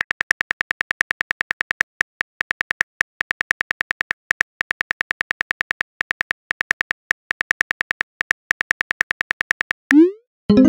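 Simulated phone-keyboard typing clicks from the TextingStory chat app: a rapid run of short, even ticks, about eight a second, with brief pauses. Near the end a quick rising swoosh as the message is sent, then a short pitched pop.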